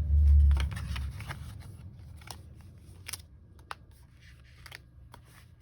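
Packaging of a diamond painting kit being handled: a low rumble in the first second, then faint rustling with scattered light clicks.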